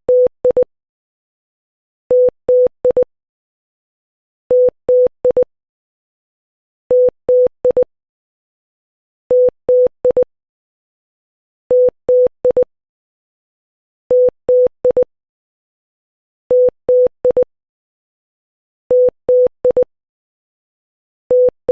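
Morse code beeps in a single steady mid-pitched tone keying dash-dash-dot-dot, the Korean letter ㅌ (tieut), repeated about every two and a half seconds.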